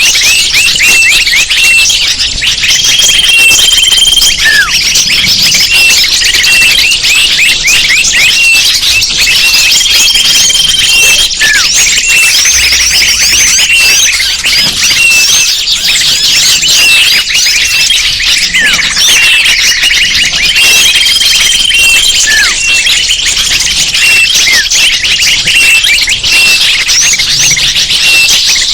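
Bird-lure recording: a dense, continuous chorus of many small birds chirping and twittering at high pitch, with short held whistled notes and falling calls recurring every several seconds.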